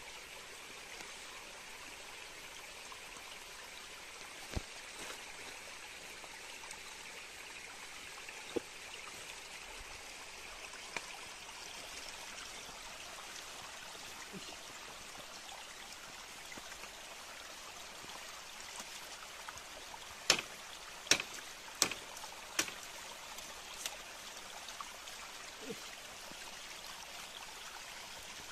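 Steady trickle of running water at a small hillside stream or pool where birds bathe, with a few sharp clicks, the loudest a quick run of four or five about two-thirds of the way through.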